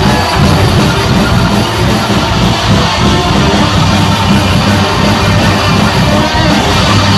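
Death metal band playing live: distorted electric guitars, bass and drums in a loud, dense instrumental passage with a fast, unbroken pulse.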